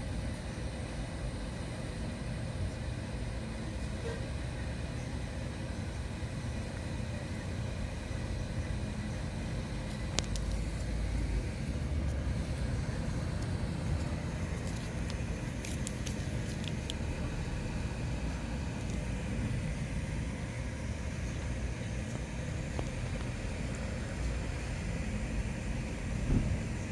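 Steady low outdoor background rumble, with a few faint clicks about ten seconds in and again around fifteen seconds in.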